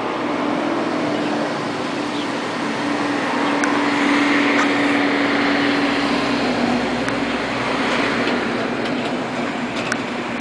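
Road traffic, with a motor vehicle passing close by. Its engine note holds steady, swells to its loudest around the middle, then drops slightly in pitch as it moves away.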